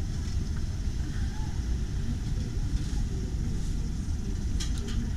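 Steady low rumble of a Mazda Axela (Mazda3) driving: road and running noise, with three short clicks near the end.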